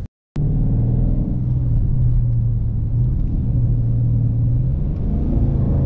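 Dodge Charger R/T's 5.7 Hemi V8 driving at low speed, a steady deep exhaust drone heard from inside the cabin; the revs begin to climb near the end.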